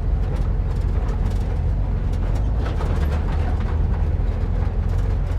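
Vintage VW split-window bus's air-cooled flat-four engine running steadily as the bus crawls along a rutted dirt trail, with frequent small rattles and knocks from the body jolting over the ruts.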